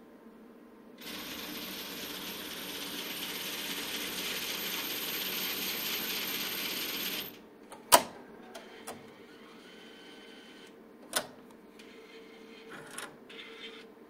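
ATM's cash-dispensing mechanism whirring steadily for about six seconds, then cutting off, followed by a loud sharp clack, a second clack a few seconds later, and light mechanical rattling near the end.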